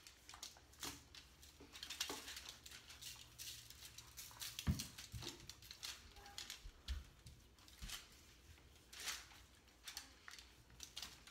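Hands rubbing seasoning into the skin of raw chicken on a foil-lined baking sheet: faint, scattered rustles and soft pats, with a couple of dull knocks about halfway through.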